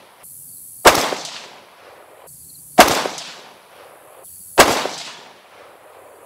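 Three rifle shots from an AR-15 with an 18-inch .223 Wylde match barrel, fired about two seconds apart as slow aimed fire for a group, each trailing off in a short echo.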